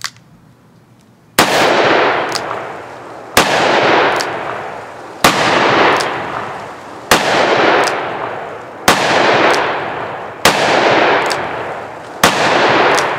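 Smith & Wesson Model 327 TRR8 .357 Magnum revolver fired seven times in slow, steady fire, about one shot every two seconds. Each loud crack is followed by a long rolling echo and a fainter second crack about a second later.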